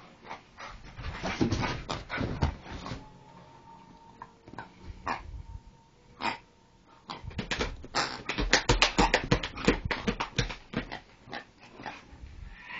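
Staffordshire bull terrier tearing around over sofas: a busy run of thumps and scrabbling paws on the cushions and frame, in two spells, the second and densest from about seven seconds in.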